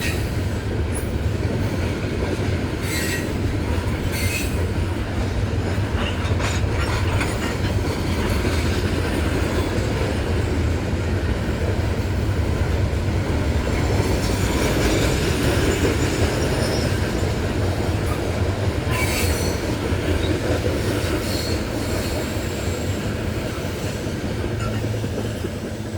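Loaded coal train cars, hoppers and gondolas, rolling past with a steady low rumble and clatter of wheels on rail, with brief high wheel squeals a few times.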